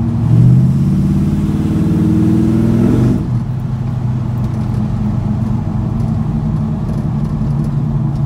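Small-block Chevy V8 exhaust through Flowmaster Hushpower HP-2 mufflers, heard from inside the cab: the engine note rises under acceleration for about three seconds, then drops suddenly and settles to a steady cruise.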